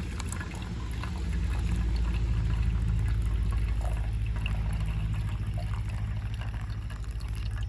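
Hot water being poured from an electric kettle into a pour-over coffee maker, a steady pour over a constant low hum.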